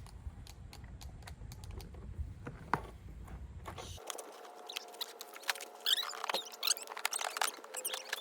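Hand tools tightening a nut on a bolt, one side held while the other is turned: small scattered clicks and scrapes that grow busier in the second half.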